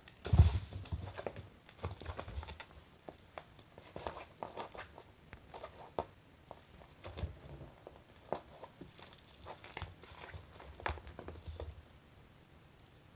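A kitten pouncing on and wrestling a plush fish toy: a thump as it lands about half a second in, then irregular rustling, scratching and light knocks of paws on the fabric toy and the floor, dying away near the end.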